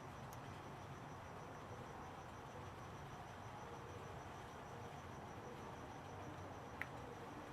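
Quiet steady background hiss with a faint, evenly pulsing high tone, and one small sharp click near the end.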